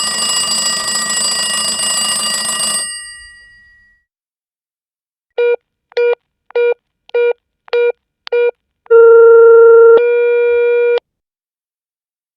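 A telephone ringing for about three seconds, fading away, then six short beeps of phone keys being dialled, about two a second, then a steady phone tone that changes pitch after about a second and cuts off.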